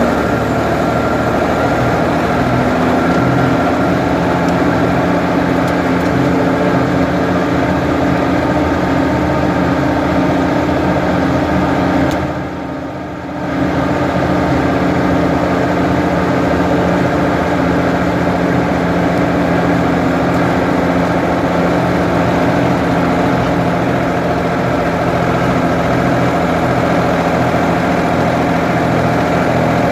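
Ford 550 backhoe's engine running steadily. Its pitch steps up slightly about a second in, and it drops briefly in level for about a second around the middle.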